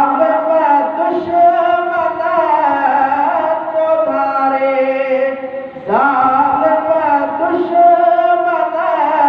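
A man singing a Sindhi naat unaccompanied, in long, held, gliding phrases. He breaks for a breath about six seconds in and starts a new phrase.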